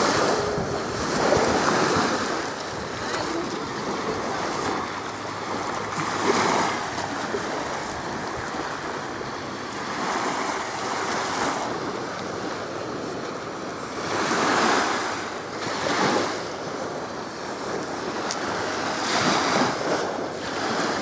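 Small waves washing up on a sandy shore: a steady rush of surf that swells every few seconds.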